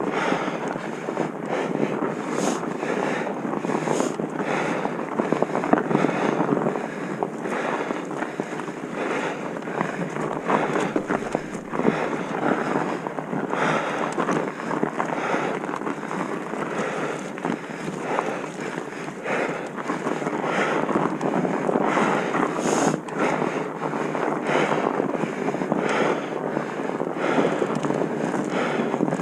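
Wind buffeting a moving microphone, a steady rushing noise broken by many short knocks and rattles.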